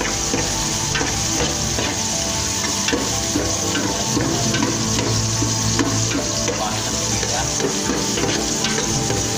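Sliced onion, garlic and chili sizzling in hot oil in a metal pot while a spatula stirs and scrapes across the pot's bottom: a steady sizzle with small scraping ticks, the sautéing of the aromatics.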